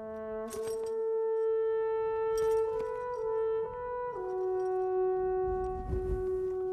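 Dramatic score music: a solo horn-like wind instrument plays a slow melody of long held notes. It steps between pitches in the first half, then drops to a lower note that it holds.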